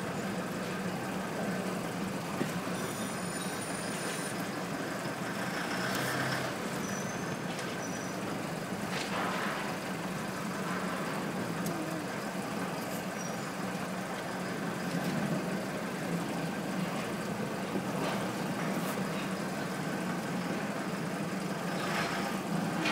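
Off-road jeep driving slowly over a rocky, uneven track, heard from inside the cabin: a steady engine hum with a few scattered knocks.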